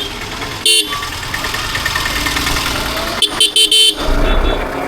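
Vehicle horn honking: one short toot, then a quick series of three or four toots about three seconds later, over steady road and wind noise.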